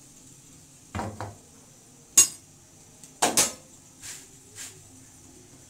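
Iron tawa clanking against the metal gas-stove grate as it is handled and the chapati turned: a series of short metallic knocks, the sharpest about two seconds in and a quick double knock a second later, fading to softer taps.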